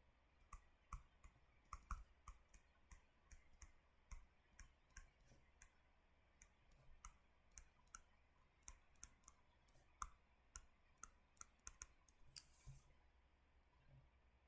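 Faint, irregular light clicks, about one to three a second, over near silence.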